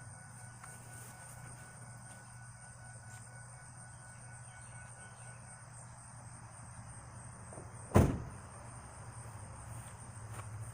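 A vehicle door slams shut once, sharply, about eight seconds in, over a steady low hum.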